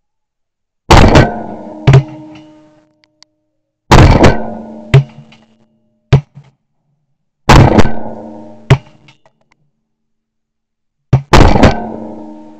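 Shotguns firing at ducks flushing off the water: about nine very loud blasts, mostly in pairs about a second apart, each with a short ringing tail. The nearest shots are heard from a camera mounted on the firing gun.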